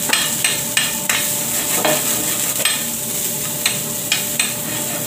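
Garlic, onion and bay leaves sizzling in hot oil in a metal frying pan, sautéing until fragrant, while a metal spoon stirs them, clicking and scraping against the pan about twice a second.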